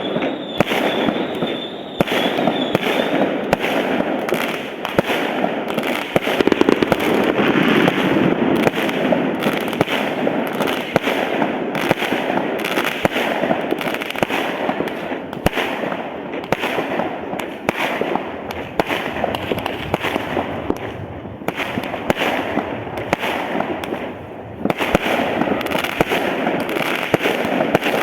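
Fireworks going off in a dense, continuous barrage: many overlapping bangs and crackling bursts with no pause, a brief dip near the end.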